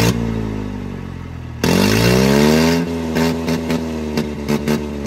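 Mahindra 575 DI tractor's four-cylinder diesel engine revved with its exhaust silencer removed, so it runs open-piped and loud. The revs fall away, are pushed up hard again about a second and a half in and held, then it is blipped in quick stabs of the throttle.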